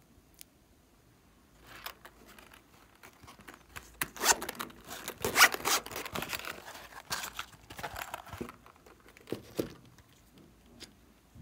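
Zipper of a glittery hard-shell pencil case being pulled open, loudest in a quick run of zipping strokes about four to six seconds in. Softer handling rustles and a couple of light knocks follow.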